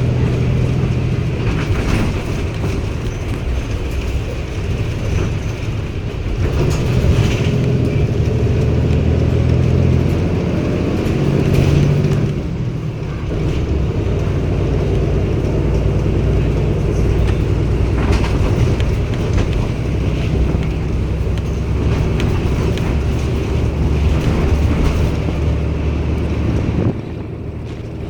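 Cummins ISB six-cylinder diesel engine of a Daewoo BS090 city bus running under changing load as the bus drives, its note shifting. It eases off briefly about twelve seconds in and again near the end.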